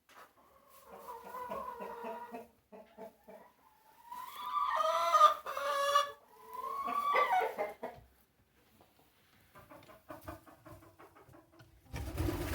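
Chickens clucking, with a long, loud, drawn-out call about four seconds in. Softer clucks follow, then a brief loud noise just before the end.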